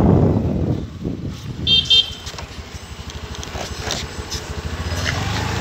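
Motorbike engine and wind rumble while riding, with two short horn toots about two seconds in. The rumble drops after the first second and builds again toward the end.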